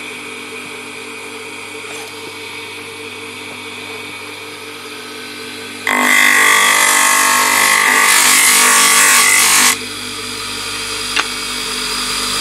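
Bench grinder motor running steadily; about six seconds in, a wooden sheath blank is pressed against the spinning wheel and ground for about four seconds, a loud rasping grind over the hum. Then the motor runs on alone, with a single tick a little after that.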